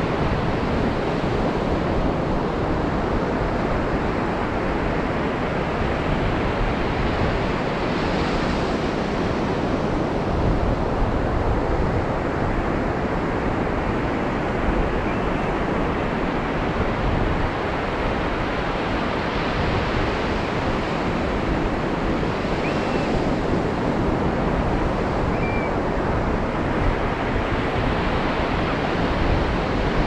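Ocean surf washing steadily, swelling a little louder about eight seconds in and again around twenty seconds in, with a low wind rumble on the microphone.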